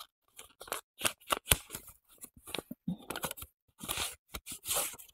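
A red paper hongbao envelope being handled and opened by hand: paper rustling with many small crisp clicks and crinkles, and a longer rustle near the end.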